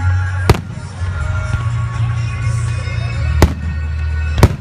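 Aerial firework shells bursting: three sharp booms, about half a second in, at about three and a half seconds, and near the end, over music playing.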